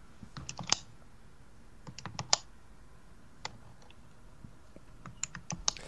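Light, sharp clicks and taps at a computer, coming in small groups: a few near the start, another group about two seconds in, a single click in the middle, and a quick run near the end.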